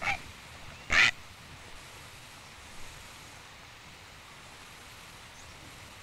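A heron giving two short, harsh squawks, the second louder about a second in, over steady film-soundtrack hiss.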